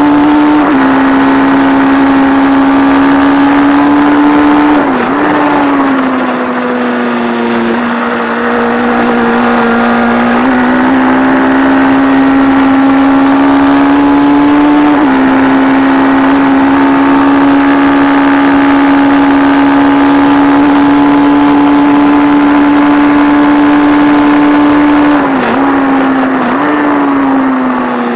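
Air-cooled inline-four engine of a 1170 cc P&M Kawasaki race bike held at high revs under full throttle, heard onboard with wind rushing past. The note dips briefly at gear changes about five seconds in and twice near the end, then falls as the bike slows.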